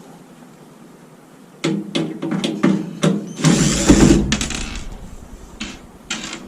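Hands and tools working on a microwave oven's sheet-metal casing: a run of sharp metal clicks and knocks, then a rattling scrape lasting about a second, about three and a half seconds in, and two more knocks near the end.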